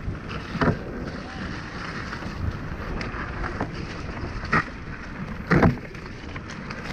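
Mountain bike rolling fast down a dirt trail: steady wind rush on the camera microphone and tyres running over dirt, with sharp clattering knocks of the bike over bumps about half a second in and twice more near four and a half and five and a half seconds.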